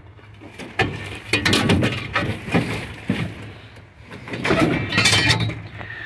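Clinking and crunching of loose, rusted junkyard debris: a string of sharp clicks and rattles in two busy spells, the second about four to five seconds in.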